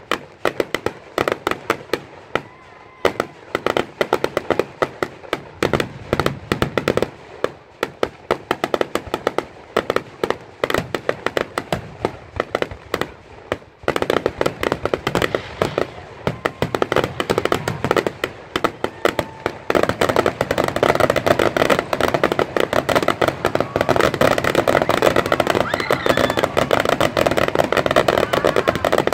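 Aerial fireworks firing and bursting in quick succession: a stream of sharp bangs and crackles. The bangs come faster about halfway through and merge into a near-continuous barrage in the last third.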